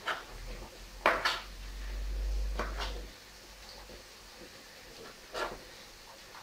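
Kitchen knife clicking against a tray while cutting roasted green peppers: a few sharp knocks, two in quick succession about a second in, then single ones later. A low hum runs under the first three seconds.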